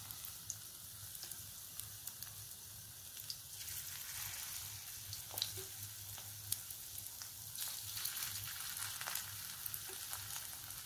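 Besan-and-egg-battered paneer cubes shallow-frying in hot oil in a kadai: a steady sizzle with scattered crackles and pops as the coating cooks.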